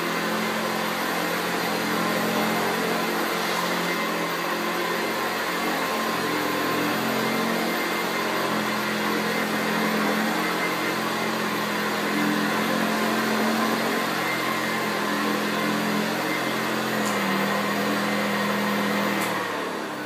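1979 Hoover U4082 commercial upright vacuum cleaner running on carpet, a steady motor hum whose pitch shifts slightly as it is pushed back and forth. Near the end it is switched off and winds down.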